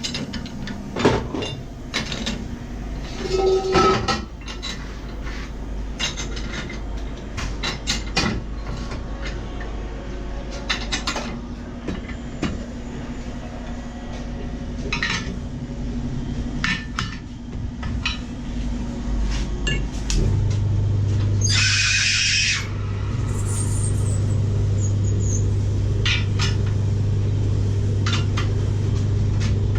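Repeated metal knocks and clinks of work on a car wheel rim. About two-thirds of the way in, an electric machine starts with a steady low hum, and two short bursts of hiss come near the end.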